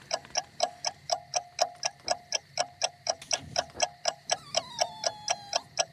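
Clock ticking steadily, about four crisp ticks a second.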